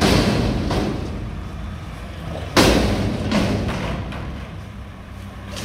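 Loud metal bangs from a Mack McNeilus front-loader garbage truck working a dumpster. A heavy bang comes about two and a half seconds in and rings on as it fades, with lighter knocks after it. The truck's engine runs as a steady low rumble underneath.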